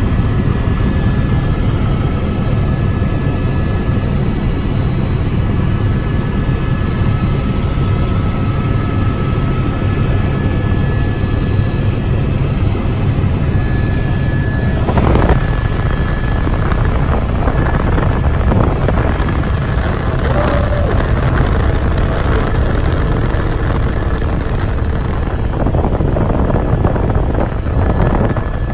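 Helicopter cabin noise in flight: the loud, steady drone of the rotor and turbine heard from inside the cabin, with a faint high steady whine over it.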